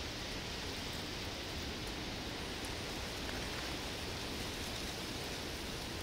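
Wind blowing steadily on the microphone: a constant, even hiss with no distinct events.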